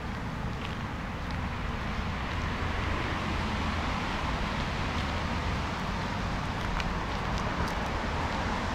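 Steady outdoor urban background noise with a low rumble and a few faint ticks.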